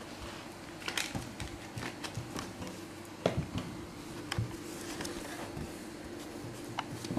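Siberian husky puppy chewing and tugging at a cardboard toilet-paper roll: irregular crinkles and clicks, the loudest about a second in and just after three seconds, over a steady low hum.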